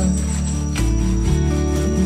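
Background music: an instrumental stretch of a song, with a steady bass and held chords.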